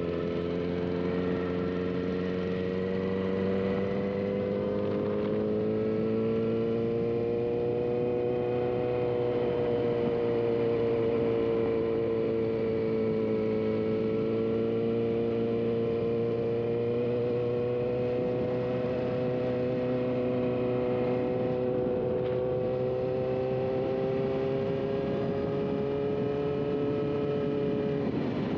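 Vehicle engine running at a steady cruise, its pitch drifting gently up and down with the road, over a steady rushing noise.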